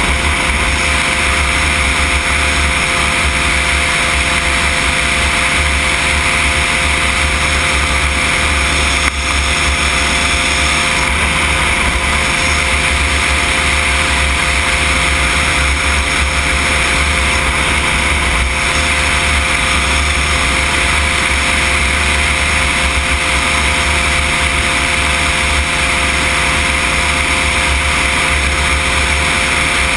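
Cosmos weight-shift microlight trike in cruising flight: its engine and propeller run at a steady drone with no change in speed.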